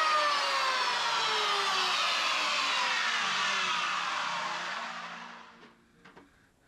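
A workshop machine's motor coasting down after being switched off: a high whine of several tones that all fall steadily in pitch and fade away over about five seconds. A few faint clicks follow near the end.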